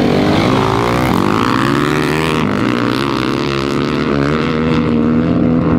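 Rally-raid motorcycle's single-cylinder engine revving hard as the bike launches from a standing start, pitch climbing over the first couple of seconds and then holding as it rides off.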